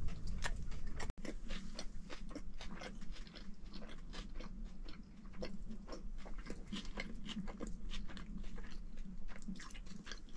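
A person chewing and biting into a soft wrap close to the microphone: irregular small wet clicks and crunches, over a steady low rumble.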